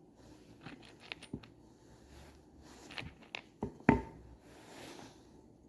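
Wooden bird-feeder parts being handled and fitted together: a scatter of light knocks and taps, with a sharper knock about four seconds in.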